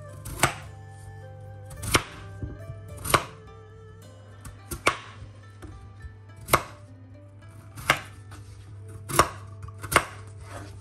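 Chef's knife chopping peeled raw potatoes into chunks, the blade knocking sharply against a wooden cutting board about eight times at uneven intervals of roughly one to one and a half seconds.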